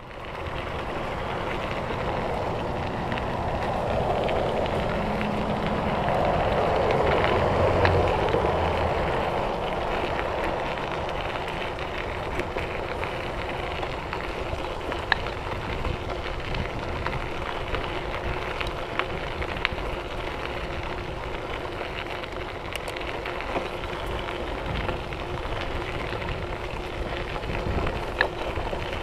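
Mountain bike rolling along a trail, heard from a handlebar-mounted camera: a steady rush of wind on the microphone and tyre noise, with occasional sharp ticks from bumps. It swells louder from about four to nine seconds in.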